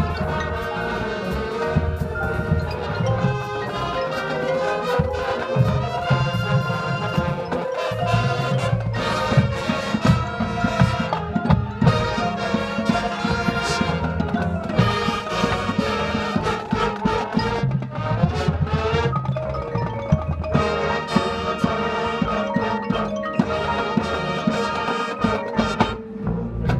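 Marching band playing its field show: marimba, xylophone and glockenspiel notes over brass and drums.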